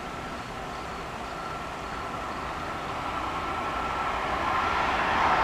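An NJ Transit bi-level train led by an ALP-46A electric locomotive approaching at high speed. Its noise grows steadily louder as it nears, over a steady high whine.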